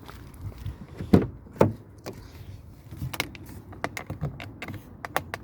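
Interior door handle of a Saab 9-3's front passenger door being pressed and worked by hand, checking it for creaks: a series of plastic clicks and knocks, with two louder knocks a little after a second in and quicker light clicks later. This front handle is more solid than the flimsy rear ones.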